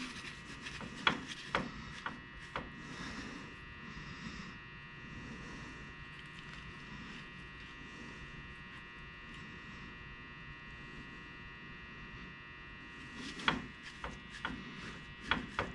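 A steady electric hum with scattered sharp metallic clicks and taps from hand work on a rear differential: a few near the start and a quick run of them near the end, while backlash is being set.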